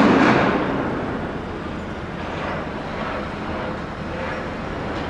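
Construction-site din from a high-rise apartment tower going up: a loud noisy burst that fades out over about the first second, then a steady mechanical rumble.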